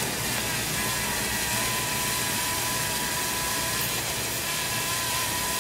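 Steady engine noise: a low rumble under an even hiss, with a faint steady whine.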